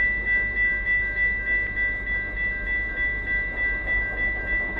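Railway level crossing warning bell ringing in a steady, even pulse of about three strikes a second, with a low rumble beneath.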